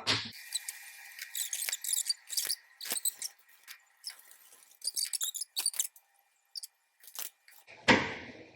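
Hands working curl cream through wet curly human hair: quick, crackly, squishy squelches in irregular clusters. A louder rustle comes near the end.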